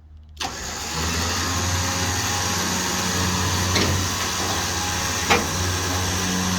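A vehicle engine running steadily with a strong hiss over it, starting suddenly about half a second in. There are two short clicks in the middle.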